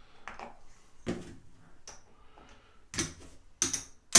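Clay casino chips clicking as they are picked up and set down on a craps table, a few separate sharp clicks about a second apart, the loudest near the end.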